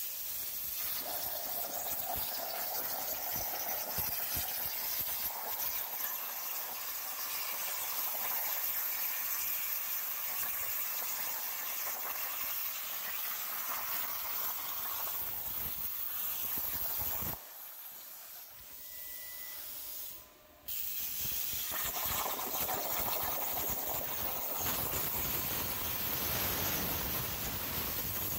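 Titanium Cut 45 plasma cutter torch on a CNC table cutting 3/8-inch hardened steel at full output: a steady loud hiss of the plasma arc and air. About seventeen seconds in the arc cuts out for about three seconds, then starts again and runs on.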